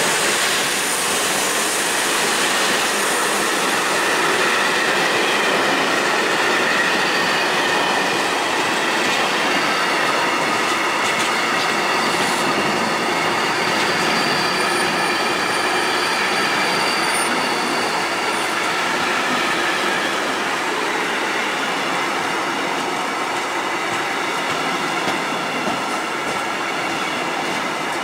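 Container-laden flat wagons of a freight train rolling past close by: steady wheel-on-rail noise, with faint high squealing tones from the wheels that are clearest midway.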